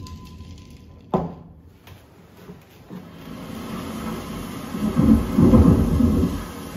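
Thunderstorm: a steady tone cuts off and a sudden crack comes about a second in, then rain and rolling thunder build up, with deep rumbling loudest near the end.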